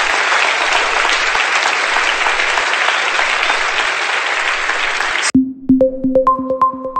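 Crowd applause, a dense steady clapping that cuts off suddenly a little over five seconds in. Music follows at once: a quick run of sharp, repeated notes.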